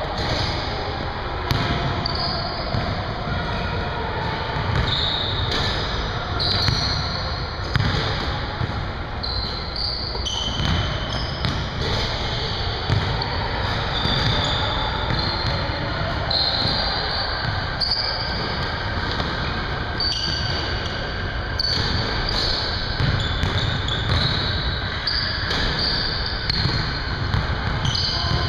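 Basketballs bouncing on a hardwood gym floor, many scattered thuds in a large hall, with voices in the background.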